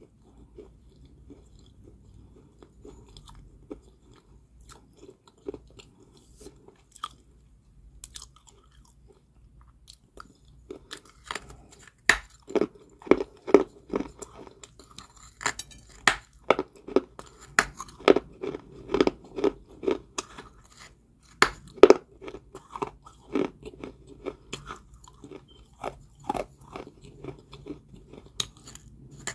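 A person biting and chewing crunchy balls of Georgia white clay. For the first third there are only sparse faint clicks, then the crunching turns dense and loud, several crunches a second.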